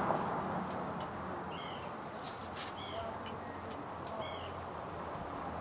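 A bird giving a short, repeated chirping call three times, about every second and a half, over a faint steady background hiss.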